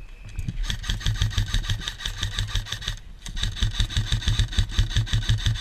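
Airsoft electric rifle firing two long full-auto bursts, its gearbox cycling in a rapid, even rattle, with a short pause between them.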